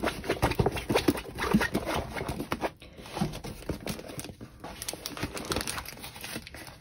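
Plastic film and packaging of a diamond painting canvas crinkling and rustling as it is handled: a dense run of irregular crackles that grows quieter after about three seconds.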